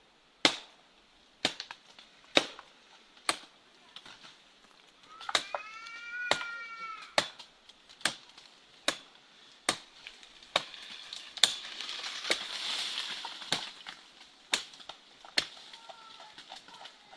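A machete chopping into a palm tree, one sharp strike a little under once a second, steady throughout. Around the middle, a drawn-out animal call rises and falls.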